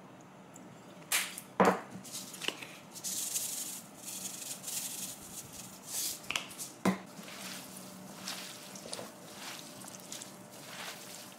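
Japchae being seasoned and mixed by hand. A few sharp knocks of bottles being set down come first, then a soft hiss of sesame seeds sprinkled over the dish. From about seven seconds in, glass noodles and vegetables are tossed with a quiet, moist rustle.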